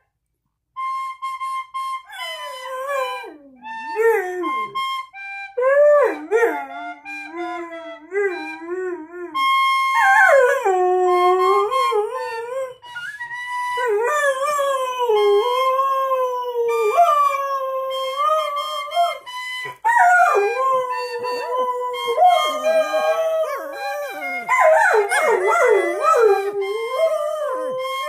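Dogs howling along to a tune played on a wind instrument: long wavering, sliding howls over short held notes, with the howls overlapping and thickening near the end.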